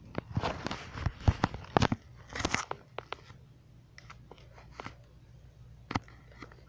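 Close contact noise from a phone pushed in among baby chicks and wood-shaving bedding: quick taps, clicks and crunchy rustling, dense for the first two and a half seconds, then scattered, with a sharp tap about six seconds in. A low steady hum sits underneath from about two seconds in.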